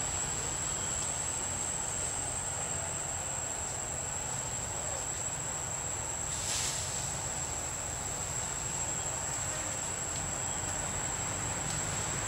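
Steady high-pitched insect drone over a low background hiss, with one brief noisy burst about six and a half seconds in.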